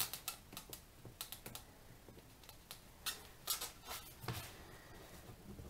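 Irregular light clicks and taps of a plastic spudger and gloved fingers working at the glued edge of a tablet screen while prying it loose.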